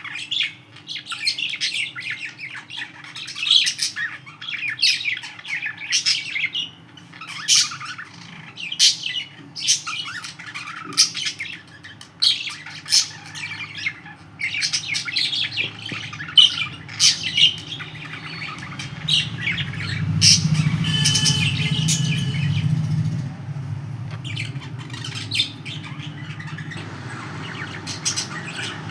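Pet budgerigars chirping and squawking, many short high calls in quick succession. About two-thirds of the way through, a low hum swells for a few seconds beneath the calls.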